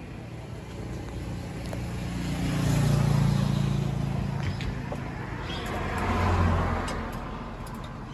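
Motor vehicles passing on a road, one after another: engine hum and tyre noise swell and fade about three seconds in, then again near six and a half seconds.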